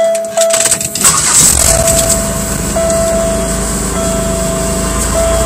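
1998 Oldsmobile LSS's supercharged 3800 V6 (L67) cold-starting: a brief crank that catches about a second in, then a steady idle. A single-tone electronic chime beeps over it, in short beeps before the engine fires and longer ones after.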